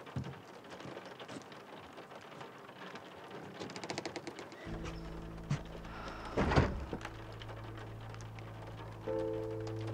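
Film score: low sustained drone notes come in about halfway and hold, with higher notes joining near the end. Underneath is a soft crackling patter. About two-thirds of the way through comes a short, loud rush of noise.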